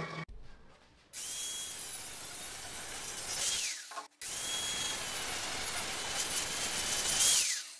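Angle grinder with an abrasive disc grinding a steel square tube clamped in a vise, in two long passes with a short break between them. Each pass is a loud hiss over a high steady whine that drops in pitch just before it stops.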